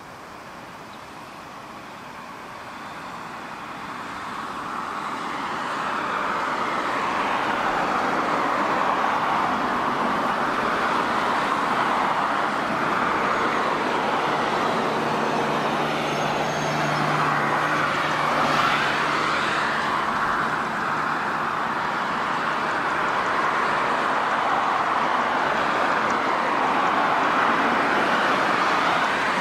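Jet airliner engines passing close by: a rushing engine noise that swells over the first several seconds, then holds steady with slowly sweeping changes in tone.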